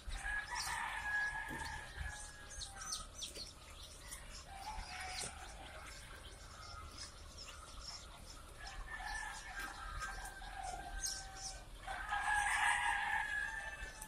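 A crowd of day-old chicks peeping without a break, loudest about twelve seconds in, with scattered light clicks throughout.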